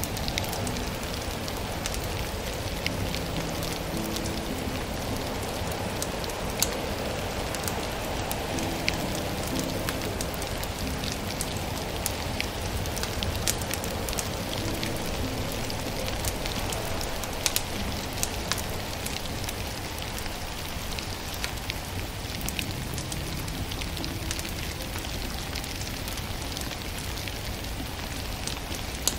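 Wood fire crackling, with frequent sharp pops and snaps, over a steady rain-like hiss.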